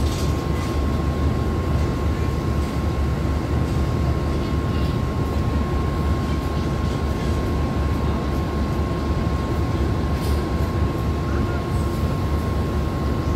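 A stationary diesel-hauled express train idling at the platform: a steady low diesel rumble with a constant high-pitched whine over it.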